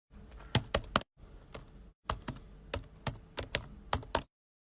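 Computer keyboard typing: quick, irregular key clicks in three short runs, each cutting off suddenly.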